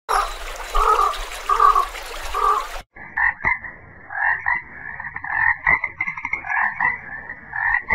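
Splashing, rushing water with three short sounds about a second apart. After a sudden cut near three seconds in, a frog croaks over and over in quick pulsed calls.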